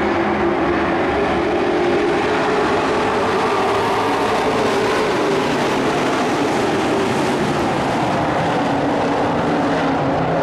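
Several dirt-track race trucks' engines running at speed around the oval in a pack, a loud, steady, continuous mix of engines.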